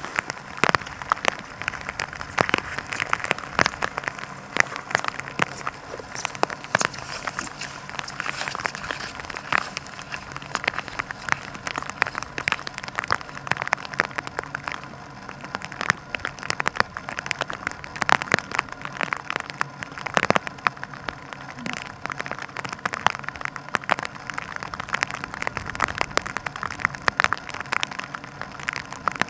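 Light rain pattering: a dense, irregular crackle of small ticks.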